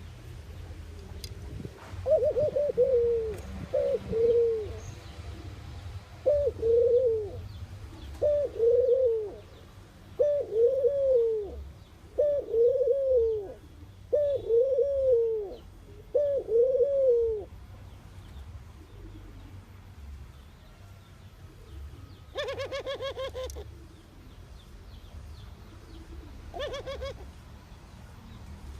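A dove cooing: a run of about nine short, arching coos, one roughly every two seconds. Later a buzzy, rapidly pulsed call sounds twice, the second shorter.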